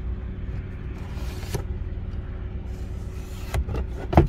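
Steady low hum of a 2009 Toyota Vitz 1300cc idling with its AC on, heard inside the cabin. A handful of sharp plastic clicks and brief rustles come as the sun visor is handled, the loudest click near the end.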